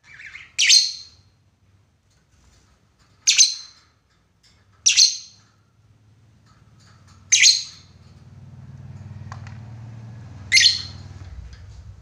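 Lovebird giving five short, high-pitched calls a few seconds apart, the calls it uses to challenge a rival. A low hum rises faintly behind them in the second half.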